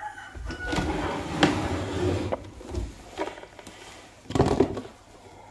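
Handling noise on a tabletop: things shuffled and moved about, with a couple of sharp clicks, and a short louder rustle near the end.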